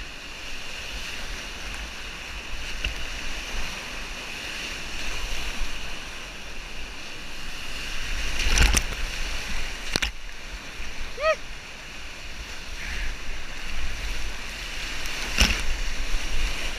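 Whitewater rapid rushing around a kayak, with waves breaking and splashing over the boat. Several sharp splash hits stand out, the loudest about 9, 10 and 15 seconds in.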